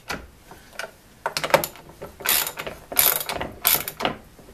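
Ratchet wrench tightening the ¼-20 bolts that hold a vise to its base: four short runs of rapid ratchet clicks, one with each back stroke of the handle, starting about a second in.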